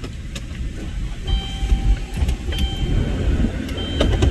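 Hurricane-force wind buffeting the microphone in a low, gusting rumble, with faint thin whistling tones and a few light clicks.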